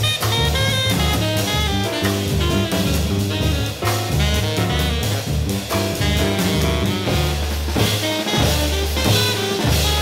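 Small-group jazz recording: drum kit and double bass with a tenor saxophone, playing at a steady swing.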